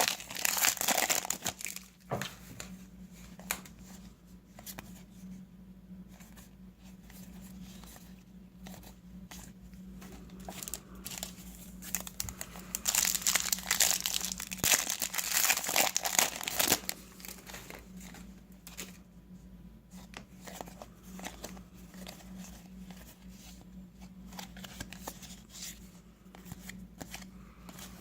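Foil card-pack wrappers crinkling in two spells, in the first two seconds and again from about 13 to 17 seconds in, with soft clicks and slides of trading cards being flipped through between them, over a steady low hum.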